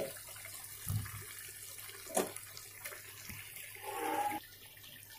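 Chicken curry with potatoes simmering gently in an aluminium pot, a faint sizzling and bubbling, with a soft knock about a second in and a sharp click a little after two seconds.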